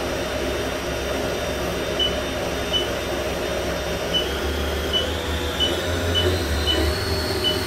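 Haas VF-9/40 vertical CNC machining centre running with a steady low hum, while about eight short, high, evenly pitched beeps sound at uneven intervals, like keys being pressed on the machine's control panel. Near the end a thin, steady high whine comes in and rises slightly in pitch.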